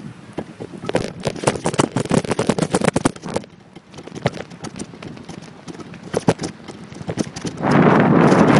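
A quick, irregular run of clicks and knocks, then a rush of wind noise on the microphone near the end.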